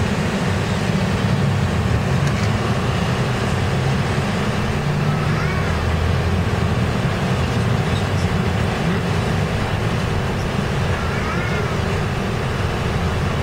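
Steady low rumble of a vehicle's engine and road noise, heard from inside a vehicle moving through city traffic. Two short rising-and-falling chirps come through, about five and eleven seconds in.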